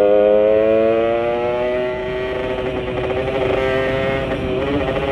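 Yamaha Sigma motorcycle engine, fitted with a 30 mm UMA carburettor and a kodok intake manifold, pulling under way. Its pitch climbs over the first two seconds, then holds fairly steady. The rider judges the mixture still a little lean.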